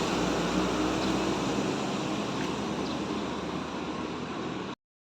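Intercity bus engine running with a steady rumble that slowly fades, then cuts off suddenly to silence near the end.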